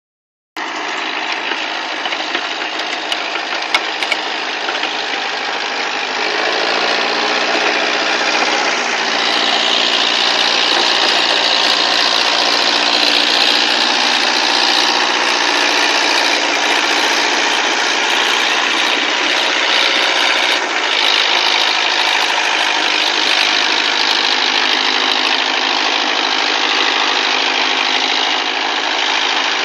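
Kubota tractor's diesel engine running steadily while driving a rotary tiller through virgin ground. The engine note rises a little about six seconds in.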